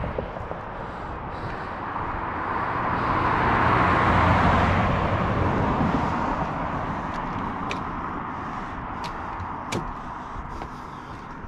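A car passing by: road and engine noise swells to a peak about four seconds in, then fades slowly.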